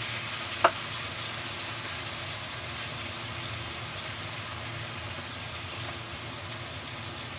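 Chicken legs and mushrooms sizzling steadily as they fry in a pan, stirred with a spatula. There is a single sharp knock of the utensil against the pan about half a second in.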